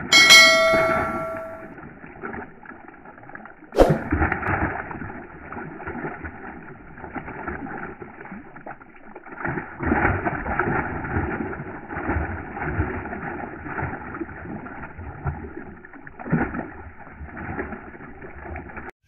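A large fish thrashing in a plastic tub of water, with repeated churning splashes. About four seconds in comes a sharp knock as it strikes the tub.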